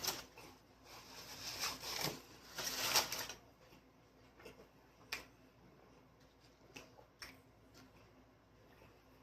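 Close-up eating sounds: a run of crackly, rustling bursts in the first few seconds, then only scattered small clicks.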